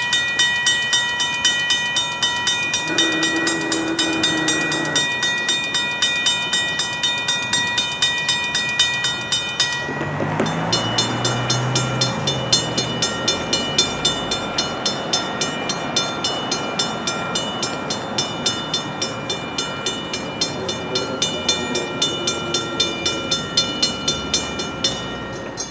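Safetran mechanical railroad crossing bells ringing with rapid, evenly spaced strokes. About ten seconds in the sound switches to a different bell with a different set of ringing tones. A train is heard alongside the bells.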